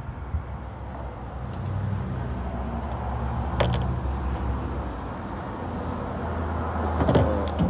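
A steady low vehicle hum throughout. A sharp click comes about halfway through, and near the end a click is followed by a brief creak, fitting the plastic taillight housing being worked loose from the truck's bed.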